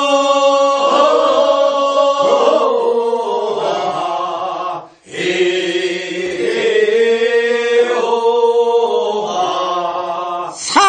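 A group of voices singing the chorus refrain of a Korean rice-paddy weeding song, answering the lead singer's verse. The chorus sings two long, drawn-out phrases, with a short break for breath about five seconds in.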